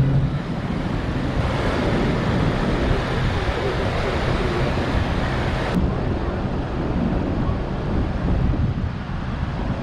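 Wind buffeting the microphone over the rush of water churned into foam alongside a large ferry's hull, with a steady low hum underneath.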